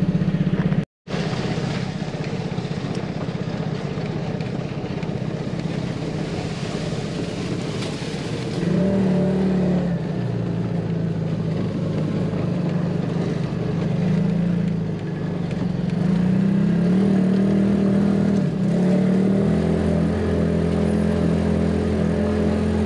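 Off-road 4x4's engine running as it crawls slowly along a rough dirt trail, the engine note rising and falling with the throttle from about a third of the way in. The sound cuts out for a moment about a second in.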